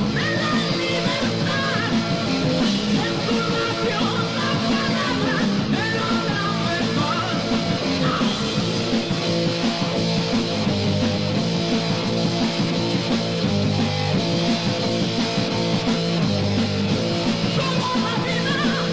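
Heavy metal band playing, with electric guitar, bass guitar and drum kit, from a 1980 recording.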